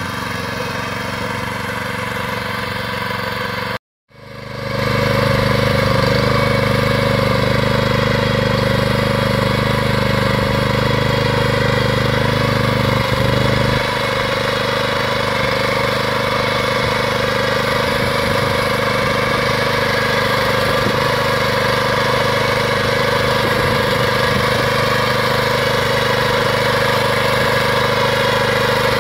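Pasquali two-wheeled tractor's small petrol engine running steadily under load while driving a rotary plough through the soil. The sound breaks off briefly about four seconds in, then resumes a little louder.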